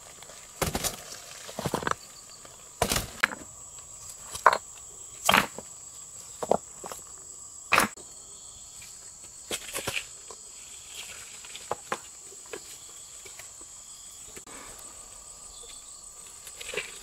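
Insects chirring steadily at a high pitch, with a dozen or so short, irregular knocks and scrapes over it.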